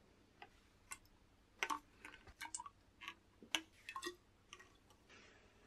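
Faint, irregular clicks and taps of a plastic oil syringe knocking against the open top of a RockShox Reba fork leg as fork oil is injected into the damper side.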